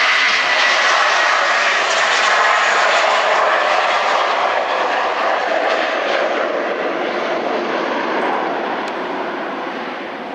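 Airbus A320-family airliner's twin jet engines at takeoff power as it lifts off and climbs away: a loud, rushing engine noise that slowly fades over the last few seconds.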